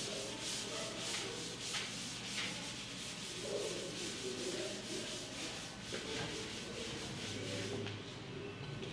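Board duster wiping a chalkboard clean in quick repeated rubbing strokes, which stop near the end.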